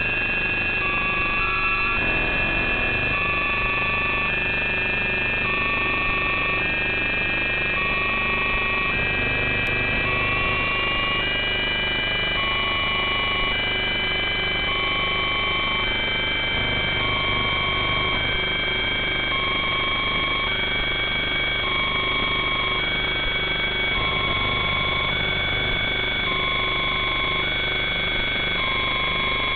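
Multirotor drone motors whining with several steady high tones that creep slowly upward in pitch as it lifts off. A two-tone electronic beep alternating between a lower and a higher pitch repeats about once a second throughout.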